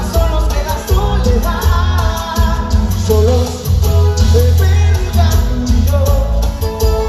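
Live grupera band music: a male singer over electric guitar, electric bass and drum kit, played loud through a concert sound system, with a heavy, steady bass and drum beat.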